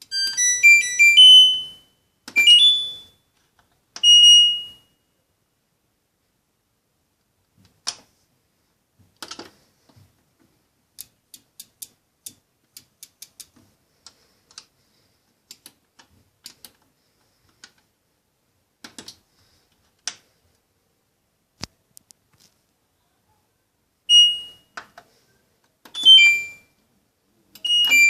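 LG washing machine control panel beeping: a quick run of electronic beep tones at the start, then single beeps. A long stretch follows of faint button clicks with no beeps, and near the end the beeps come back.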